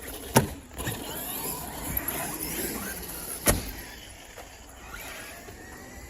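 Electric RC cars' motors whining up and down in pitch, with two sharp impacts of the trucks landing on concrete, about three seconds apart.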